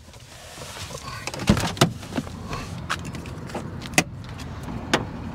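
Knocks and clicks from the cab of a Ram ProMaster van as the driver's door is opened and he climbs out, letting in outdoor background noise about a second in, then a sharp click about four seconds in as the hood release lever in the footwell is pulled.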